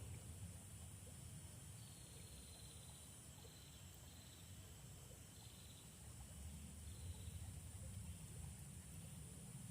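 Faint insects: a thin, steady high-pitched drone, with four short pulsed trills coming and going, over a low rumble.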